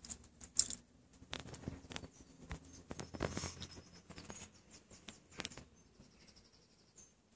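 High-heeled boot pressing and crushing cherry tomatoes on concrete paving slabs: a scatter of irregular sharp clicks, taps and squashing sounds as the sole rolls and bursts them.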